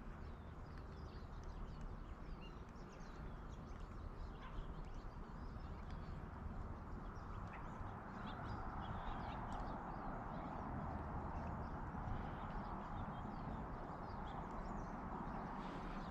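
Faint outdoor animal calls: scattered small high chirps over a steady hiss that grows a little louder about halfway through.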